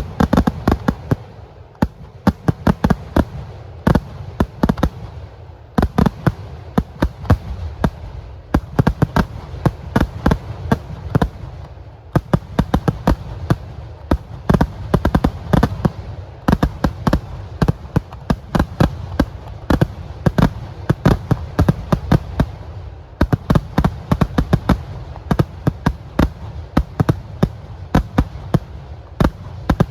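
Kerala temple-festival fireworks (vedikkettu) going off in a rapid, near-continuous barrage of sharp firecracker bangs, several a second, with a few brief lulls.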